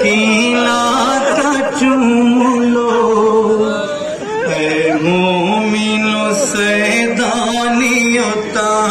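Chanted Urdu noha, a mourning lament, sung in long held notes that step up and down with hardly a pause.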